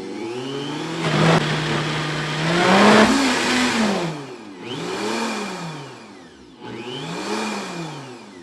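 Vitamix blender motor blending a smoothie and being sped up and slowed down over and over. Its whine climbs and falls in pitch about every two seconds.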